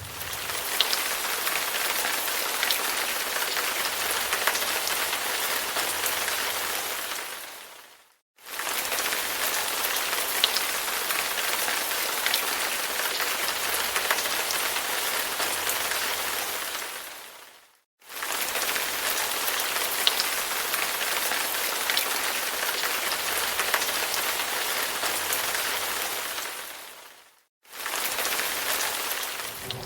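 Steady rain falling: a dense hiss sprinkled with small drop clicks. It fades out to silence and straight back in three times, about every nine or ten seconds.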